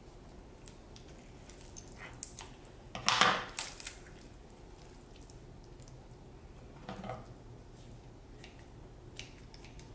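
Kitchen shears snipping through a raw whole chicken in short, scattered clicks. About three seconds in, a louder clatter comes as the metal shears are put down on the wooden cutting board.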